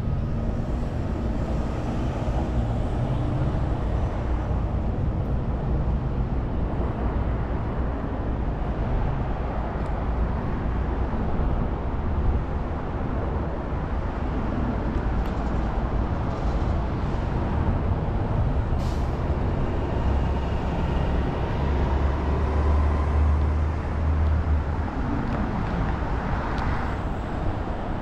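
Downtown street traffic heard from a moving bicycle: a steady wash of engines and tyres. A deeper engine rumble swells from about twenty to twenty-four seconds in, and there is a short hiss a little before that.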